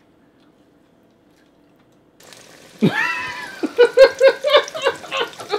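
Near silence, then about two seconds in a frying sizzle starts. Over it comes a high-pitched, meow-like cry that glides down, then a quick run of short high notes, about four a second.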